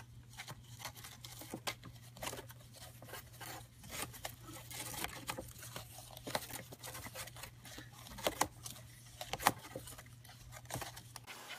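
Irregular sharp crackles and crinkles of cage bedding and objects being pushed about by a pet hedgehog, with a few louder clicks around the middle and near the end.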